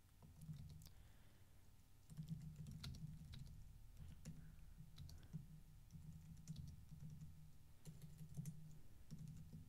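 Faint typing on a computer keyboard: irregular, quick key clicks.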